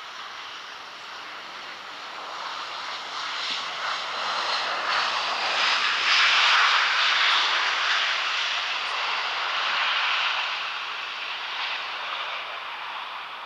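Boeing 737 jet airliner on its landing roll just after touchdown, its jet engines running loud. The engine noise swells to a peak about six seconds in, rises again a little near ten seconds, then fades, the usual build and die-away of reverse thrust during rollout.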